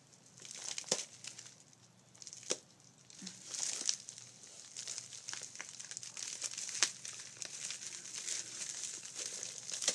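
Mailer envelope crinkling and tearing as hands rip it open, with several sharp rips standing out from the crinkling.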